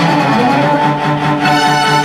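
Theatre show music: bowed strings over a low note repeated in an even pulse.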